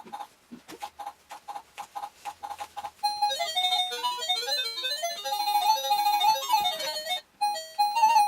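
TeckNet wireless doorbell receiver playing its electronic chime tunes: a single note repeated quickly for about three seconds, then a short melody, then another tune starting near the end as the ringtones are switched.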